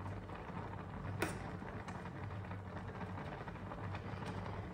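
Rice boiling hard in a steel pot on a gas burner: a steady bubbling and burner hiss with a low hum, and a single sharp clink of a steel spoon against the pot about a second in.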